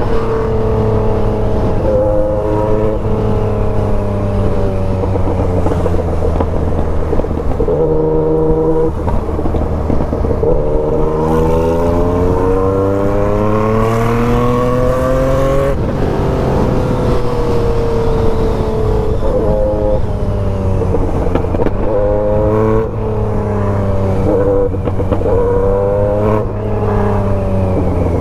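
Yamaha MT-09's inline three-cylinder engine pulling through traffic from the rider's seat. Its pitch climbs steadily for several seconds in the middle, drops suddenly as the throttle closes, then sinks, with shorter rises and falls near the end.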